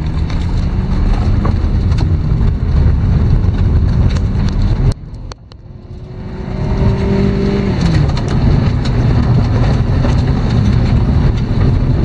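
A Hyundai car driving on a dirt forest track, heard from inside the cabin as a steady low rumble of engine and tyres. About five seconds in the sound cuts out abruptly and builds back up, and near eight seconds the engine tone falls in pitch.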